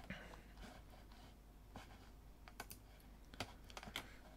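About half a dozen sharp, irregularly spaced clicks from a computer keyboard and mouse being worked, over faint steady room hum.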